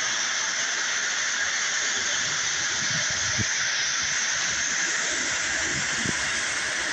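Toy electric train running on three-rail tinplate track: a steady whirring rush of the motor and wheels on the metal rails, with a few faint low knocks.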